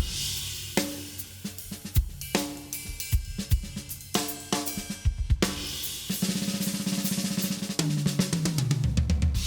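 Acoustic drum kit being played: kick, snare and cymbal hits, then a fast roll in the second half that steps down the toms from high tom to floor tom.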